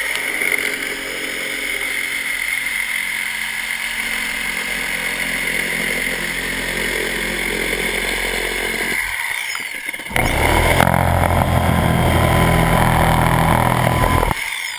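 Milwaukee reciprocating saw cutting through the dome's sheathing panel. It runs steadily, stops for about a second, then runs again louder and cuts off near the end.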